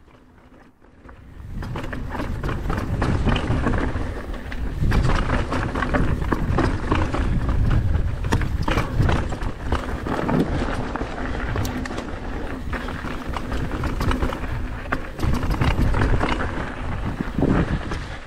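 29-inch Canyon Torque AL mountain bike riding fast down a dirt and gravel downhill trail: knobby tyres rushing over the loose surface, with constant rattling and knocking from the chain, frame and suspension over bumps and wind rushing over the microphone. It starts quietly and builds to a steady loud rush within the first two seconds.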